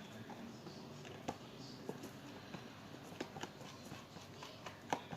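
Slime mixture of glue and glitter being stirred in a bowl: faint, irregular sticky clicks and small squelches as it starts to thicken into slime.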